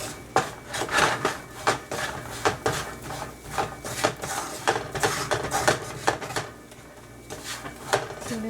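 A spoon scraping and knocking around a skillet as almonds are stirred in brown sugar that has thickened and is turning dry and powdery. The strokes are irregular, and grow fewer and quieter in the last couple of seconds.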